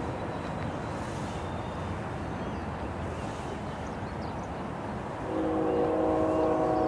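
CN 3040, a GE ET44AC diesel locomotive, rumbling as it approaches with its freight train. About five seconds in, a long blast of its multi-tone air horn starts and sounds to the end.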